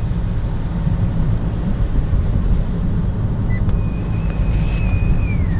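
Steady low rumble inside the car, then about four seconds in a thin, high whine comes through the Fiat Bravo II's Blue&Me hands-free audio, holding one pitch and then sliding down near the end: the annoying sound the Blue&Me system makes.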